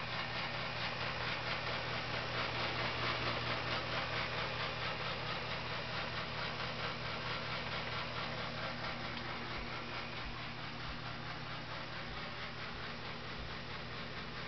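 Whirlpool dehumidifier running: a steady airy rush from its fan over a low hum, growing a little fainter after about four seconds.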